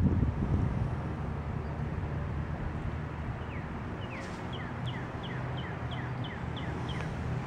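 A steady low rumble. From about three and a half seconds in, a bird sings a quick series of short notes, each sliding downward, about three a second, ending just before the end.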